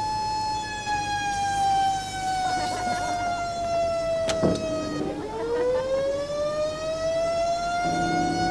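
A siren tone that holds steady, sinks slowly in pitch, dips sharply about five seconds in and then climbs back up. A sharp click sounds just after four seconds, as a door's handle and lock are worked.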